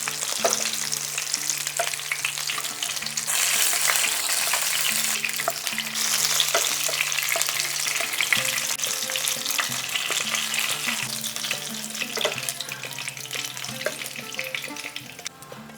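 Small bata fish frying in hot mustard oil: a steady sizzle with crackling pops, and clicks and scrapes of a spatula in the pan as the fish are lifted out. The sizzle drops away near the end.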